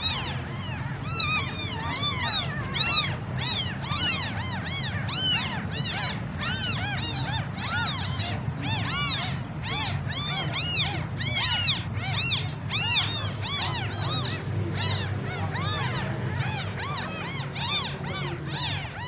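Several newborn kittens mewing without pause: high-pitched, overlapping cries at about two to three a second, each rising then falling in pitch. They are crying for their mother.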